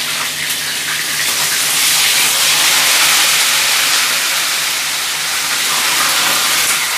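Whole fish frying in hot oil in a pan: a loud, steady sizzle that swells a little about two seconds in as more fish go into the oil.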